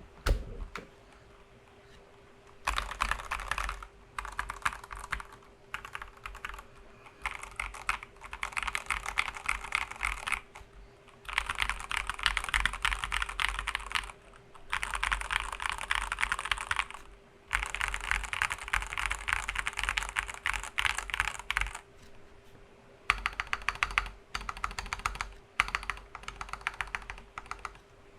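Mechanical keyboard with Gateron Pro Yellow Milky linear switches being typed on fast, in runs of rapid keystrokes lasting one to three seconds with short pauses between them; the first couple of seconds are quiet.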